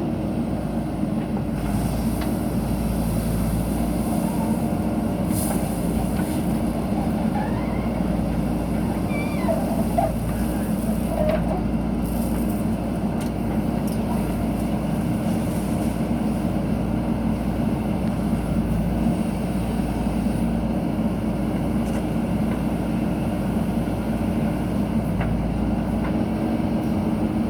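Diesel engine of a JCB backhoe loader running steadily, a constant low hum that holds at one pitch.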